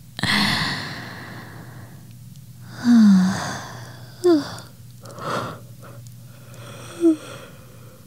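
A woman's close-miked breathing as she drifts toward sleep. A long breath out at the start fades away, a louder sigh with a falling voiced note comes about three seconds in, and softer breaths and small murmured sounds follow.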